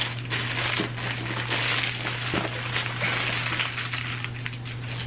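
Clear plastic packaging crinkling and rustling as a vinyl handbag is unwrapped and handled, with a couple of light clicks, under a steady low electrical hum.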